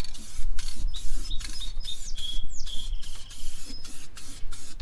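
Aerosol can of Rust-Oleum satin black paint spraying in short hissing bursts, about three a second.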